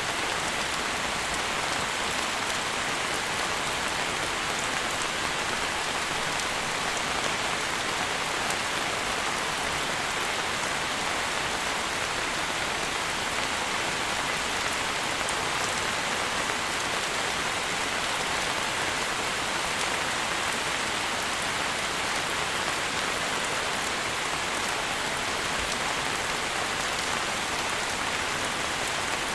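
Steady rain falling, an even hiss that keeps the same level throughout.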